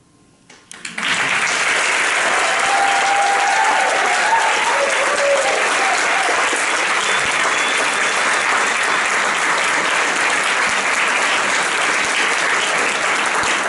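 Audience applauding: clapping breaks out about a second in and carries on steadily and loudly.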